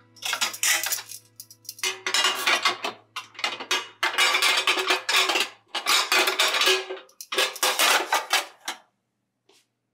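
Dishes, bowls and pans clattering and rattling as they are loaded into a dishwasher rack, in about seven separate bursts that stop shortly before the end.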